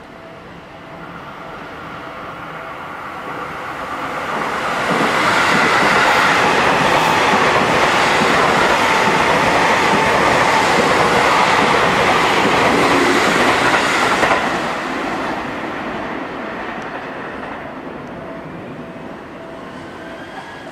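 Seibu 6000-series electric train (set 6117F) running through a station at speed without stopping. Its noise builds as it approaches, stays loud for about ten seconds as the cars pass close by, then fades slowly as it moves away.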